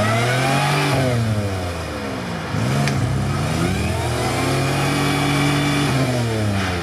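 Lifted Toyota 4Runner on oversized mud tyres, its engine revving hard and easing off in several surges as it pushes through deep mud and water, holding high revs for a couple of seconds before dropping back near the end.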